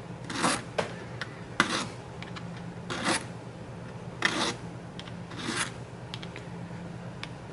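Fine Nicholson 00 file rasping across a black tobacco pipe stem in short, separate strokes, a second or so apart. The bite zone is being filed flat to take out tooth chatter.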